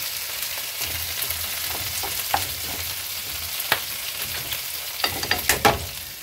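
Steady frying sizzle, with a wooden spatula stirring a thick onion and sour cream sauce in a frying pan, scraping and tapping against the pan. The taps come a couple of times early on and crowd together, loudest, near the end.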